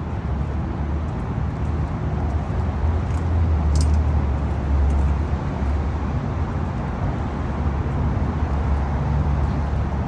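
Large engine running steadily with a low rumble, typical of heavy construction machinery, and a faint click about four seconds in.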